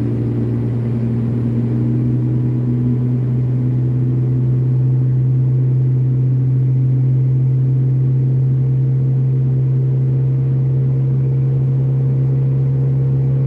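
Dodge Dakota pickup's engine running at steady highway speed, heard inside the cab as a steady low hum over road noise, swelling slightly a few seconds in.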